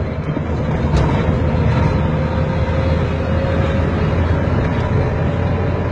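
Steady car engine and road rumble heard from inside the cabin of a moving car, with a strong low hum and a faint click about a second in.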